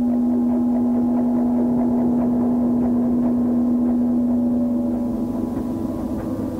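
Dark ambient music from a four-track cassette tape: a loud steady low drone note with quieter held tones layered above it. About five seconds in the drone begins to waver and fade while the tones above come up.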